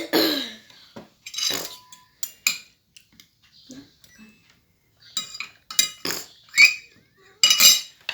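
Cutlery clinking and tapping against dishes: a scattered string of short, sharp clinks, some ringing briefly, busiest in the last three seconds.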